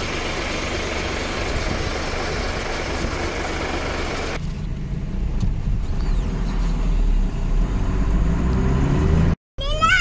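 Truck engine and road noise while driving. About four seconds in the sound changes abruptly to a deeper engine rumble whose note climbs steadily as the revs rise.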